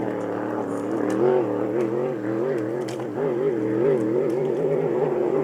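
Racing hydroplane engine running at speed on the course, its note wavering quickly up and down.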